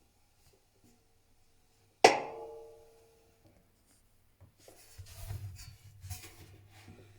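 Techwood washing machine giving one loud, ringing metallic knock about two seconds in, the ring dying away over about a second and a half. From about five seconds on comes a quieter, rough rumbling with a few small knocks. This is the knocking noise whose cause the owner does not know.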